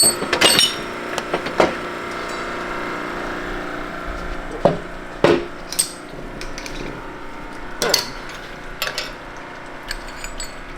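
Steel transmission parts clinking and knocking as gears and washers are taken off an NV5600 main shaft and set down; about half a dozen sharp metallic knocks, some ringing, a second or more apart.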